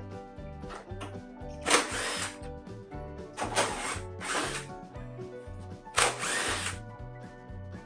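A power tool run in four short bursts, each about half a second to a second long, over background music.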